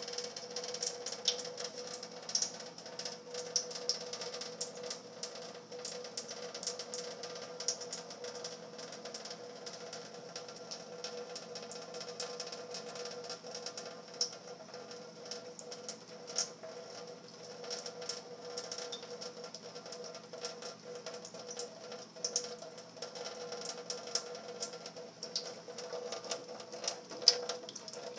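Thin stream of tap water running into a stainless-steel sink, with a steady hum, broken by irregular small taps and splashes as cats paw at the stream and drink from it.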